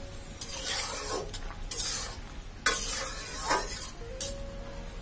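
A cooking spoon stirring a simmering green-banana and bori curry in a pot, about five scraping strokes roughly a second apart.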